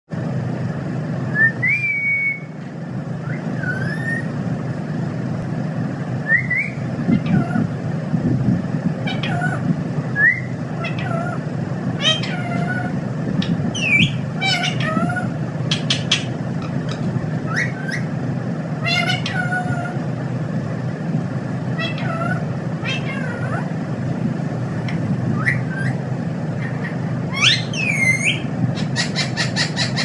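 Rose-ringed parakeet making short whistled calls, scattered every second or two, with a quick chattering run near the end. A steady low hum lies underneath.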